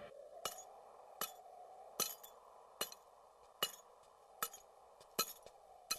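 Sharp metallic clinks repeating at a steady pace, about one every 0.8 seconds, as of metal being struck over and over, over a faint steady hiss.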